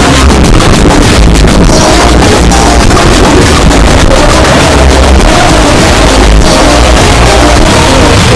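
Very loud, heavily distorted dance music with a heavy bass.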